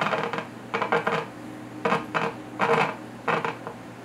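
Handling noise from the metal chassis of a 1949 General Electric television: about five bursts of metallic clatter and scraping as hands work the controls at its lower front. A steady low hum runs underneath.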